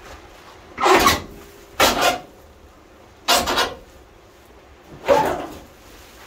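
Sheet-metal radiator core support of a 1976 Chevy C10 scraping against the truck's front sheet metal as it is pulled loose, in four short grating rasps about a second or more apart.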